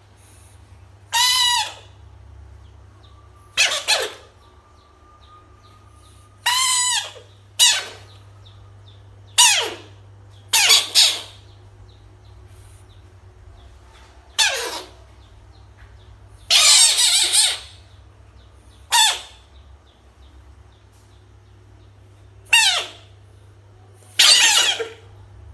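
A frog screaming: about a dozen short squealing cries, each falling in pitch, spaced irregularly from under a second to a few seconds apart.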